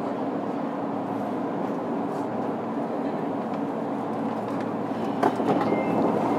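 Running noise heard aboard a JR Kyushu 103-1500 series electric motor car on a subway line: a steady rumble of wheels and motors. A couple of knocks come about five seconds in, then the running gets a little louder, with a faint high steady tone near the end.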